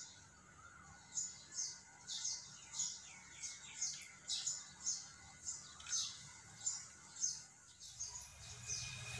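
A small bird chirping over and over: short, high chirps falling in pitch, about two a second.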